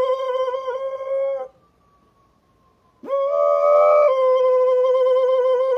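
A dog howling: one long, steady howl that breaks off about a second and a half in, then a second howl about three seconds in that starts higher and settles back to the same pitch.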